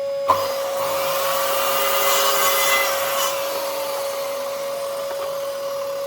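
Electric power saw running with a steady whine and cutting into timber, the cutting noise loudest a couple of seconds in, then easing.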